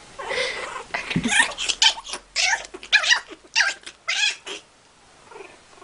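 A young pet cries out in a string of short, high-pitched squeals and yowls during a rough puppy-and-kitten play fight. There are about nine cries in roughly four seconds, then they stop.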